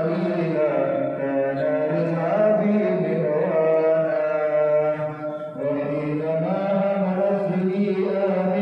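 A man's voice chanting an Islamic prayer in long, held, melodic phrases that glide between notes, with a short break about five and a half seconds in.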